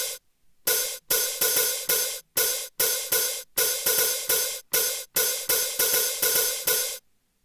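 Alesis SR-16 drum machine playing its "Sweet Hat" hi-hat sound as a string of short, separate hits, about three a second and somewhat uneven. The hits stop shortly before the end.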